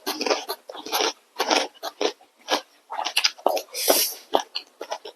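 People eating instant noodles with chopsticks: irregular slurps and chewing sounds, with a few longer slurps among shorter smacks.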